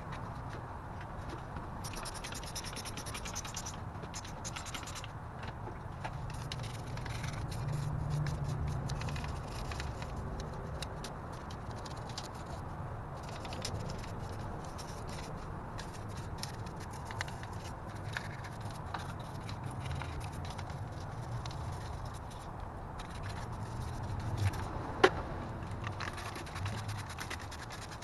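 Hand brush scrubbing and scraping grime off a car engine block, a continuous rough scratching, with a sharp click near the end.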